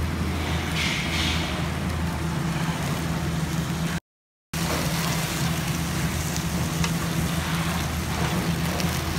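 Tuna steak sizzling and crackling on a grill, over a steady low hum. The sound cuts out briefly about four seconds in.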